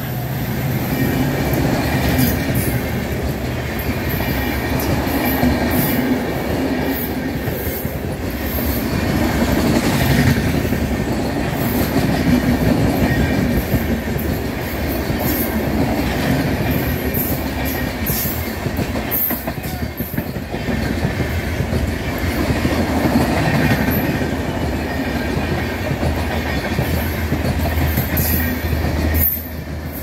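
Passenger coaches of a long Indian Railways express rolling past at close range: continuous wheel rumble and clickety-clack over the rail joints, with a thin wheel squeal. The noise falls away briefly near the end as the last coach passes.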